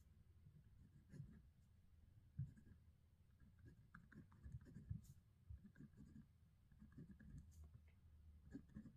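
Faint pen scratching on paper as someone writes by hand, in irregular strokes with soft knocks against the desk.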